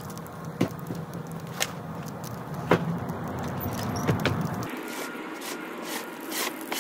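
A few sharp knocks over a steady low hum that stops about two-thirds of the way through, then a gloved arm sweeping snow and lumps of charcoal across a wooden table top near the end.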